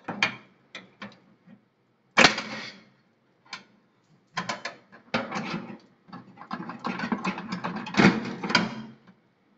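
Metal clattering inside an oven as the rotisserie spit and wire racks are handled: one sharp knock about two seconds in, scattered clicks, then dense rattling through the second half.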